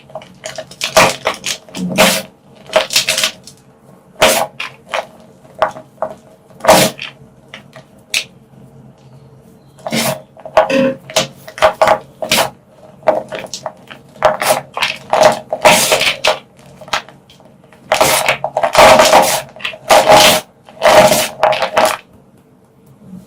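Dyed gym chalk blocks being crushed and crumbled by hand, a series of dry crunches and crackles in irregular bunches, thickest near the end.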